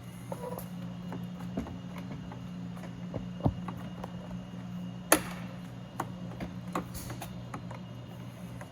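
Scattered clicks and light knocks of car door parts being handled and pushed together, as the inner door handle cable and its clip are fitted into the door. The sharpest click comes about five seconds in. A steady low hum runs underneath.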